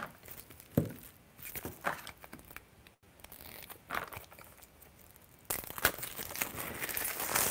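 Paper being torn open and crinkled by hand as a sealed printed review guide is unsealed: scattered handling clicks and rustles, then a denser stretch of tearing and rustling from about five and a half seconds in.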